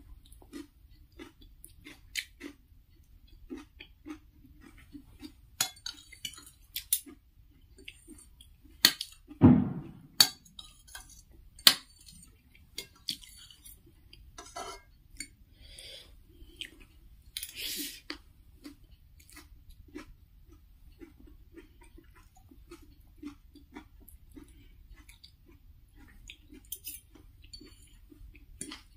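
Close-miked chewing of instant noodles, with a metal fork and spoon clinking and scraping on a ceramic plate. One louder thump comes about nine and a half seconds in.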